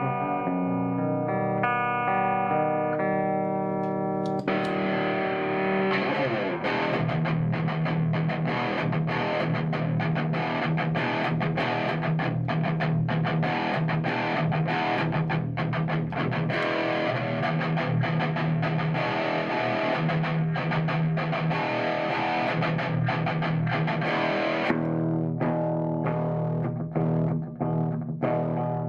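Electric guitar through a Randall Diablo amplifier, first clean and picked in single notes. About four seconds in it switches to the distorted channel for heavy playing, then returns to the clean channel near the end: channel changes made with the footswitch.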